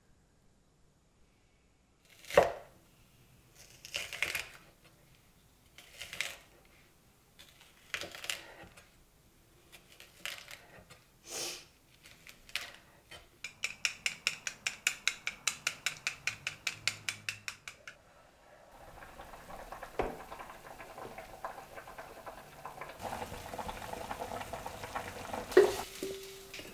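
Kitchen work: a string of separate knocks and clatters. Then eggs are beaten in a bowl with chopsticks, a fast, even clicking of about six strokes a second. Then comes a steady sizzling hiss of food cooking on the stove, with a sharp clink near the end.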